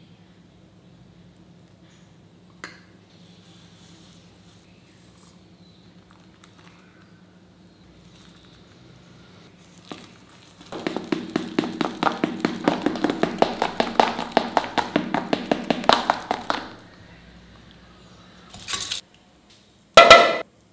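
A spoon beats thick batter in a steel bowl with quick, even strokes, about six or seven a second, for some six seconds. Near the end there is a short loud rattle as split moong dal is poured into a steel pressure cooker.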